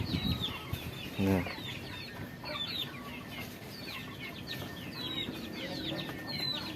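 Many chickens clucking and peeping together, a steady scatter of short, high, falling calls, with one brief lower-pitched call about a second in.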